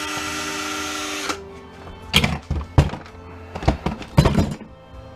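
A cordless drill or power screwdriver running steadily for about a second, taking out a screw, then stopping; several sharp knocks follow.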